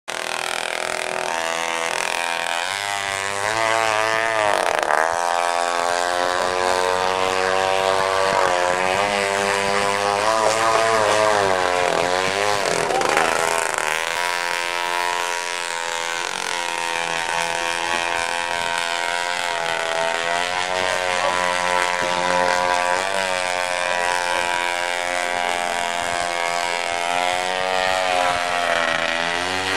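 25cc engine of an R/C model lobster boat running under way, its pitch repeatedly dropping and climbing again as the throttle is eased off and opened up.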